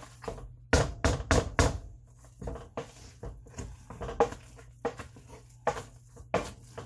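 KitchenAid hand potato masher pushed repeatedly through soft boiled potatoes, knocking against the bottom of a stainless steel pot. A quick run of about four loud strokes about a second in, then softer, irregular strokes.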